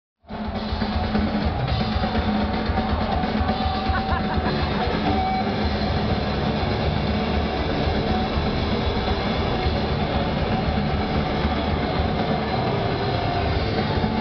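Black metal band playing live at full volume: distorted electric guitars and fast drumming, steady and dense throughout.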